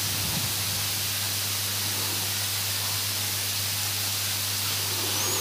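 Steady hiss of a microphone's recording noise with a low, even electrical hum under it.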